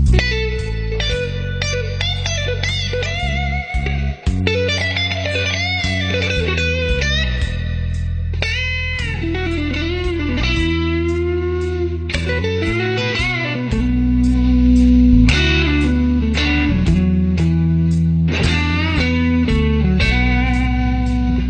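Music: an electric guitar playing a lead line with bent and wavering notes over sustained bass notes and a steady beat.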